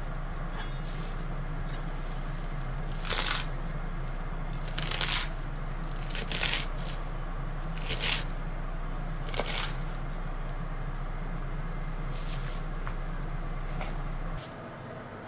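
Kitchen knife cutting through crisp mizuna stalks on a wooden cutting board: a few short crunchy cuts, about five loud ones spaced a second or two apart, with fainter ones later, over a steady low hum that stops near the end.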